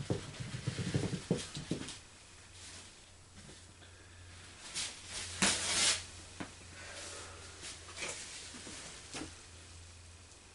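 Paper towel rustling and a few light knocks of handling as excess grease is wiped off a tapered roller bearing, with one louder rustle a little past halfway, over a steady low hum.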